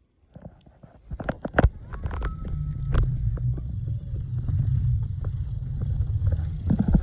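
Wind rumbling on the microphone of a camera carried on a moving bicycle, with scattered clicks and rattles from the bike on the trail. It starts about a second in, after near silence.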